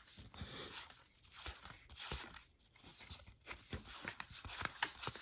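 Paper trading cards being flipped through by hand, card sliding over card in faint, irregular scrapes and light ticks.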